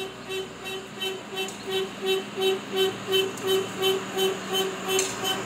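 Tipper truck's reversing alarm beeping evenly, about three beeps a second, over the low steady drone of its diesel engine as it backs up.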